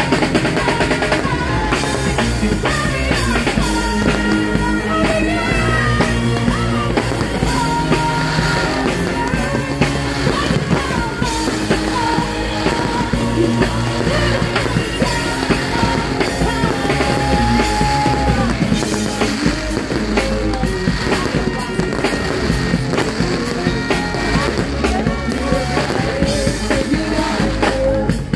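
Music with singing and a drum beat, mixed with dense crackling and popping from fireworks.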